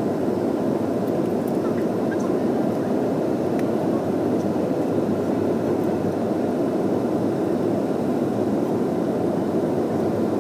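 Steady jet engine and airflow noise inside an airliner's passenger cabin, an even, unchanging rush with no rise or fall.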